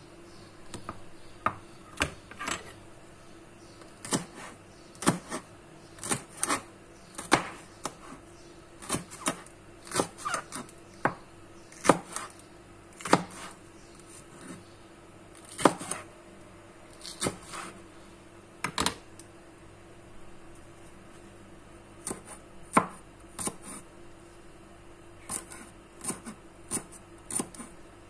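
Chef's knife chopping green peppers and then spring onions on a cutting board: irregular sharp knocks of the blade against the board, with a pause of a few seconds around the middle.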